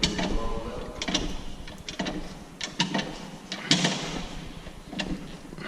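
Irregular metallic knocks and clanks, a dozen or so sharp strikes, the loudest nearly four seconds in, from heavy farm machinery being moved and lined up by hand.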